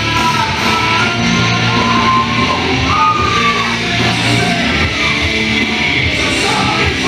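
Wrestler's entrance music: a loud rock song with a singing voice and guitar.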